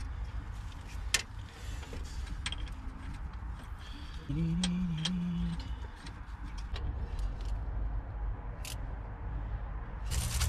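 Light metallic clicks and clinks of steel ARP head studs being handled and threaded by hand into an engine block, over a low steady rumble. A brief low hum comes about four and a half seconds in.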